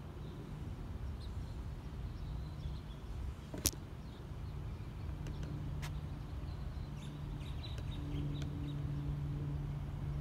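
Outdoor background noise: a steady low rumble and hum, with a few faint high chirps and one sharp click about three and a half seconds in.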